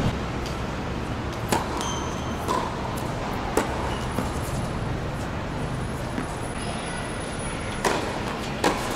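Tennis balls struck by rackets and bouncing on a hard court during a doubles rally: several sharp pocks at uneven intervals, two of them close together near the end, over a steady background rumble.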